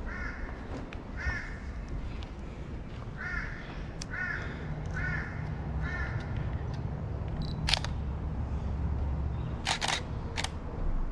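A bird calling in short, repeated chirps, then a camera shutter clicking: one click, then three in quick succession near the end.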